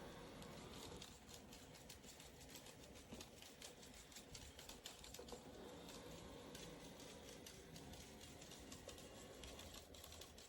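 Near silence: faint room tone with light, irregular clicking.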